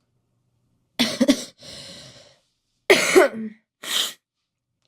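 A young woman coughing with a cold in three bursts: a double cough about a second in, followed by a drawn breath, then two more coughs close together near the end.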